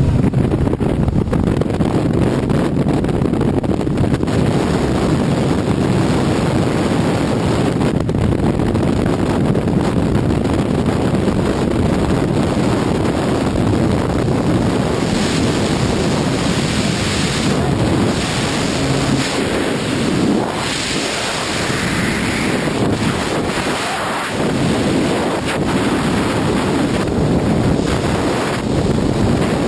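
Heavy wind noise on the camera's microphone from the skydiver's exit and freefall. Through the open helicopter door in the first half, with the helicopter's engine and rotor beneath it. Changing to the rush of freefall air after the jump, about halfway through.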